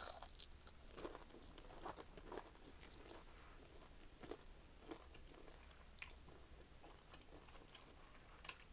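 Close-up chewing of crunchy fried shrimp: a loud crunching bite about half a second in, then softer, scattered crunches as it is chewed.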